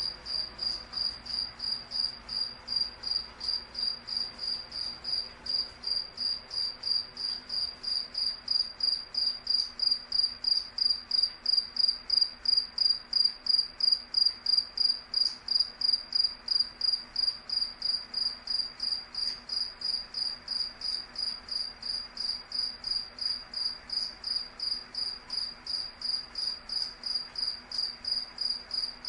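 A cricket chirping steadily: one high, even tone repeated at about two to three chirps a second, growing somewhat louder midway and easing off again.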